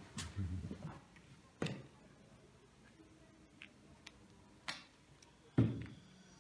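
A few sharp knocks or clicks at irregular intervals over a quiet background, the loudest near the end.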